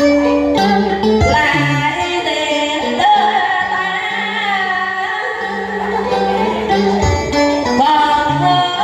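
A woman singing a Vietnamese duet over instrumental backing music, amplified through a microphone.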